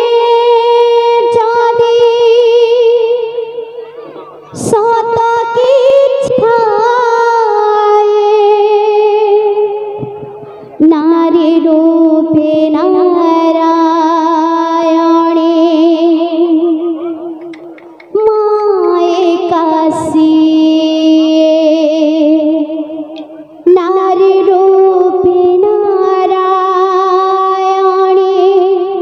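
A woman singing a Sambalpuri kirtan through a microphone and PA, in long held notes with heavy vibrato, about five drawn-out phrases that each fade away before the next begins. A couple of sharp strikes cut in along the way.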